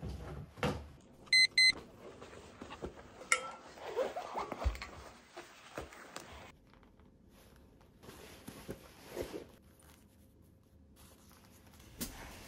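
Two short electronic beeps in quick succession about a second and a half in, amid scattered light clicks, knocks and rustling of everyday handling in a small room.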